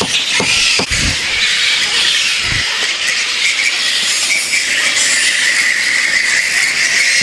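Roosting colony of flying foxes (large fruit bats) squealing and chattering in a dense, shrill chorus, with a few sharp clicks in the first second.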